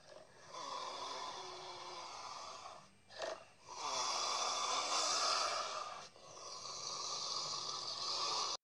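A big cat growling in three long, raspy growls, the middle one the loudest, with a short sharp one between the first two.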